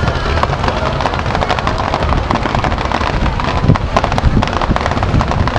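Fireworks bursting overhead: a dense, continuous crackle of many sharp pops, with a few louder bangs about four seconds in.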